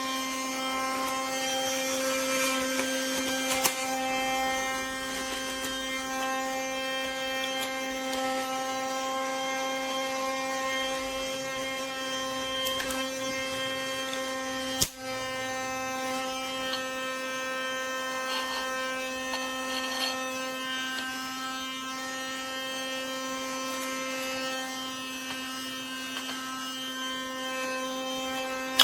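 Small battery motor of a Casdon Dyson toy cordless vacuum running with a steady, even-pitched hum, with one sharp click about fifteen seconds in.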